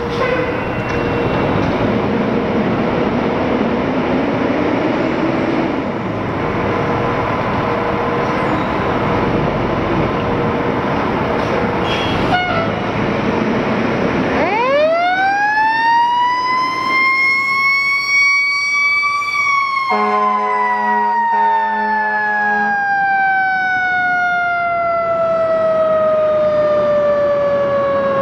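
Fire apparatus diesel engines running with a broad rumble, until about halfway in a Federal Signal Q2B mechanical siren winds up steeply to a high scream. It then winds slowly down, and a Grover air horn blasts for about three seconds as the wind-down begins.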